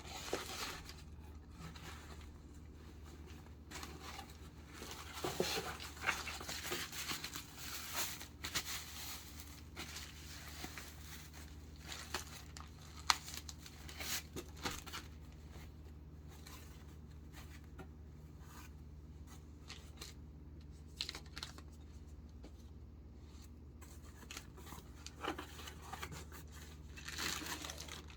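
Packaging being unwrapped by hand: intermittent rustling, crinkling and tearing of paper or plastic wrap, in bursts with short pauses between, over a steady low hum.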